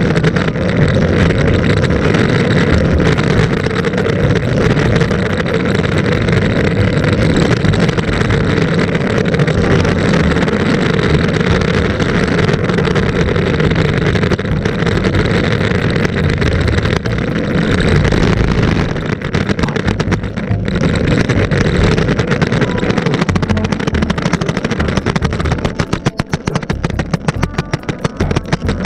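Longboard wheels rolling fast over a rough, gritty bridge deck, heard as a loud steady rumble close to the board. Near the end the board rolls onto concrete paving and the rumble turns choppy and uneven.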